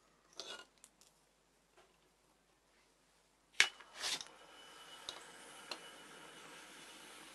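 Light clicks of steel pliers being handled. About three and a half seconds in comes a sharp click, then a short burst and a steady hiss: the glowing hot bead from the resistance-heated copper cable has been dropped into a glass bowl of water and is quenching.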